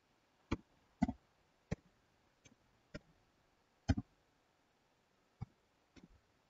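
Computer keyboard keys pressed one at a time in slow typing: about eight separate faint clicks at uneven intervals.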